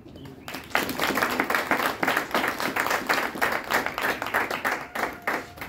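Church congregation clapping and applauding, starting about half a second in and dying away near the end.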